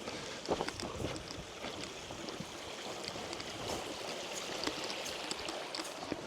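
Glacier-fed mountain stream flowing steadily.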